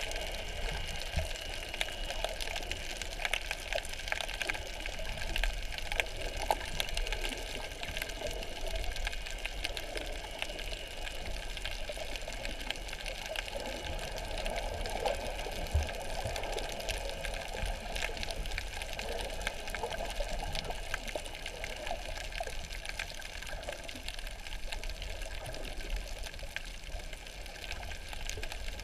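Underwater ambience picked up by a submerged camera: a steady, muffled wash of moving water with many scattered faint clicks.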